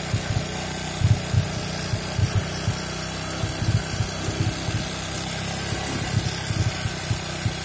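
Honda Supra X 125's single-cylinder four-stroke engine idling, with irregular short low thuds over a steady hum. The engine is one that has run short of oil, and the mechanic suspects a worn cam chain tensioner or loose valve clearance.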